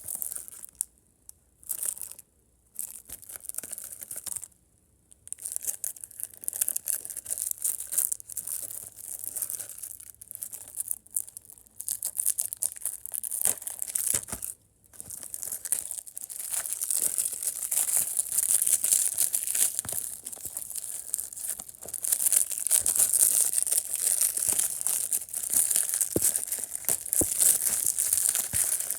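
Plastic shrink-wrap being torn and crinkled off a Blu-ray case. The rustling comes in stretches with short pauses at first and grows denser and louder about halfway through.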